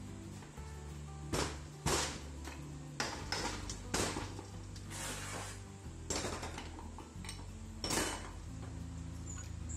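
Repeated sharp metallic clanks of steel tools knocking against the front of an automatic transmission while its oil pump is being worked loose and pulled out, about eight knocks at uneven intervals. Soft background music runs underneath.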